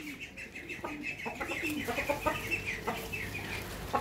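Chickens clucking, with a rapid stream of short high chirps from small birds over them.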